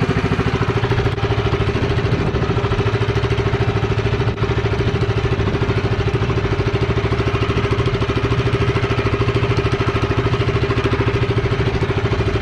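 A small engine running steadily at idle, with a fast, even pulse and an unchanging pitch.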